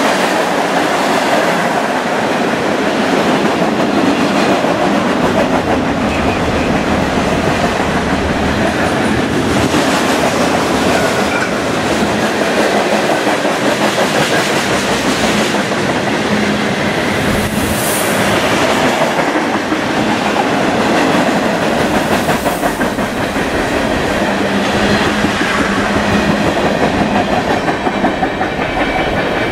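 Freight train of boxcars and tank cars rolling past at speed, steel wheels clattering on the rails in a loud, steady run.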